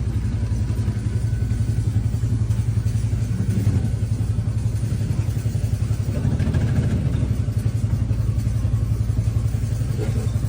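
Small engine of a motorized Amish-style buggy running steadily at low speed, with a low rumble and a fast, even pulsing.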